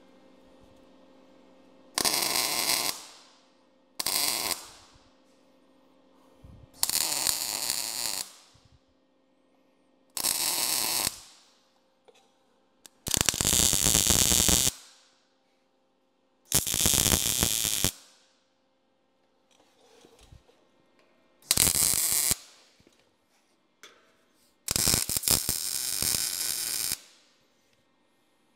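Arc welder laying a series of tack welds on steel bearing brackets: eight short bursts of welding arc, each half a second to two seconds long, with pauses of one to four seconds between them.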